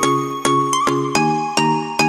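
Background music of bright, quickly decaying notes in a steady bouncing beat, about two to three notes a second, over a low bass line.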